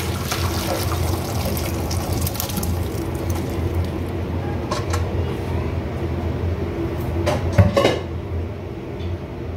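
Boiled beef pieces and their broth poured from a pot into a hot pan of frying onion and ginger-garlic paste: a steady pour and splash of liquid, with a few metal knocks near the end, the loudest about seven and a half seconds in.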